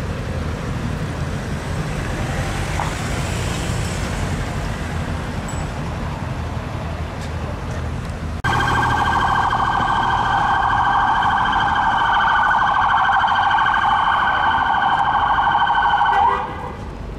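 Street traffic, then, from a sudden cut about eight seconds in, the siren of a Land Rover Discovery police car close by: a loud, rapid, steady warble. It bends upward and cuts off shortly before the end.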